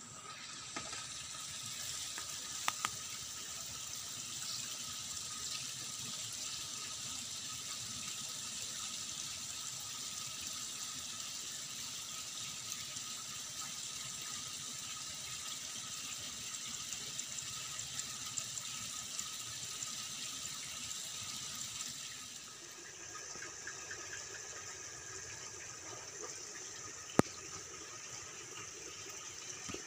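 Steady rush of running water with a thin, steady high whine over it; the rush eases a little about twenty-two seconds in. Two sharp clicks, one early and a louder one near the end.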